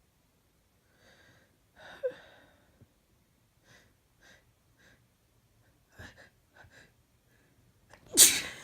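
A woman with a cold taking gasping, wheezy breaths and small sniffs, then a loud sneeze bursts out near the end.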